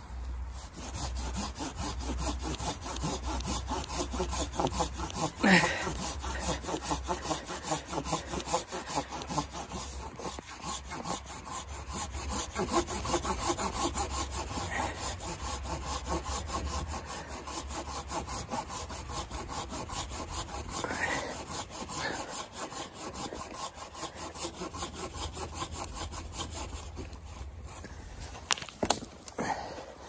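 Folding hand saw cutting through a dead log, in steady, even back-and-forth strokes as the teeth rasp through the wood. A few sharper knocks come near the end.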